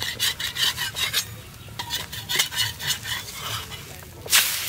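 A metal spatula scrapes again and again under a besan chilla on a hot tawa, working it loose to flip it. Near the end the chilla is turned onto the hot tawa and a loud burst of sizzling breaks out and carries on steadily.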